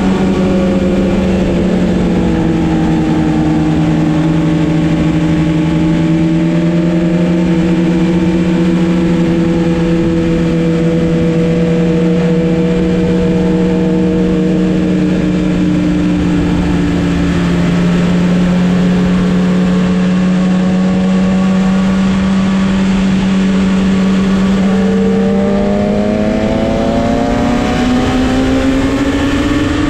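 Sport motorcycle engine running at a steady cruise, its pitch drifting gently, then rising as the bike accelerates near the end, over a steady rush of wind noise.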